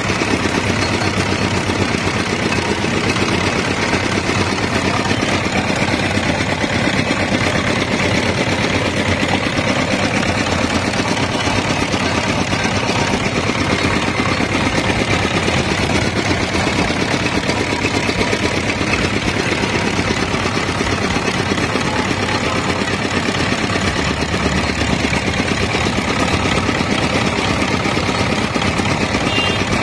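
Engine of a roller-type sugarcane juice crusher running steadily at idle.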